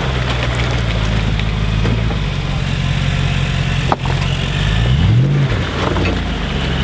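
Nissan Patrol Y62's 5.6-litre V8 running at low revs as the 4WD crawls through a mud hole. About five seconds in it revs up briefly and falls back.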